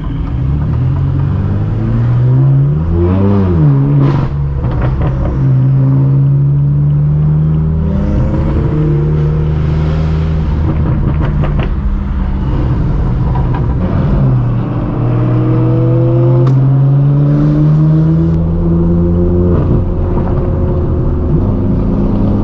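Straight-piped BMW M4 F82's twin-turbo inline-six through a non-resonated AWE track exhaust, driving: a quick rev blip about three seconds in, then the engine pulling with its pitch climbing slowly, dropping briefly about two-thirds of the way through, climbing again and falling away near the end.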